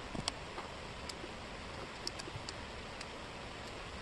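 Wooden jigsaw puzzle pieces clicking lightly against each other and the table as they are handled and fitted, scattered single taps with the loudest few near the start, over a steady hiss.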